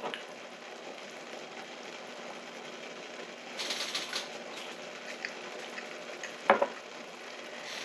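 Shabu-shabu broth simmering in a pot with a steady bubbling hiss. The hiss swells briefly about three and a half seconds in, and there is one sharp knock about six and a half seconds in.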